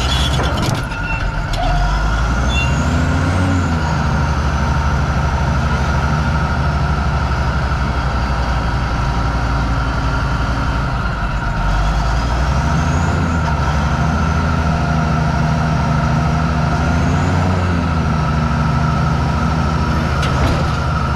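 Komatsu D375A-5 crawler dozer's large diesel engine running steadily. Its note rises briefly three times as the blade is raised and lowered.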